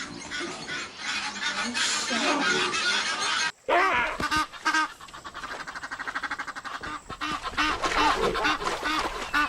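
A pack of spotted hyenas giggling and yelping in a noisy, overlapping chorus. There is an abrupt cut a little over a third of the way in, and a stretch of rapid, even pulses near the middle.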